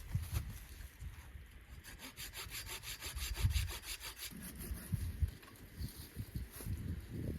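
A hand saw cutting wood, a fast rasping run of strokes about two seconds in, with low knocks from the wood around it.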